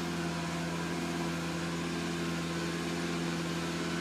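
Vacuum tanker's engine and vacuum pump running steadily, a constant low hum with a rushing hiss over it, as the suction hose draws sludge out of a septic tank.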